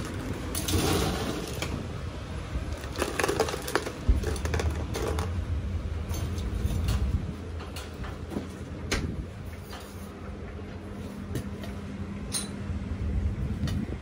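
Ice cubes clattering from a metal ice scoop into a plastic cup, then scattered clinks of ice and handling. Dense rattling in the first half thins to occasional clicks later. A steady low hum runs underneath.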